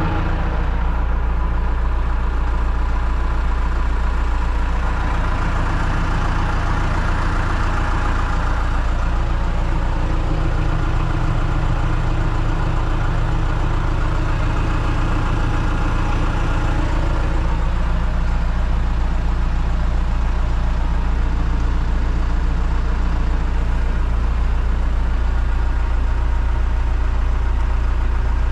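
John Deere 310SE loader backhoe's four-cylinder diesel engine running steadily at a low idle.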